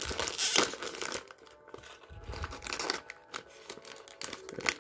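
Foil blind-bag package crinkling and tearing as it is pulled open by hand. The crackling is busiest in the first second, then thins to scattered crinkles as the opened bag is handled.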